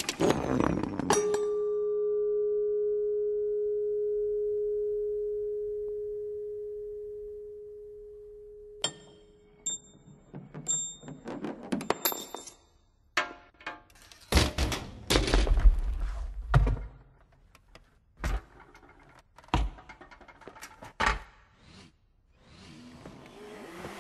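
Honda Accord car parts set off one after another in a chain reaction, with a clatter of metal parts knocking together. A single metallic ringing tone follows, holds, then fades over several seconds. Then come ticks and rattles of parts rolling and tipping, a run of heavy low thuds, and several separate knocks.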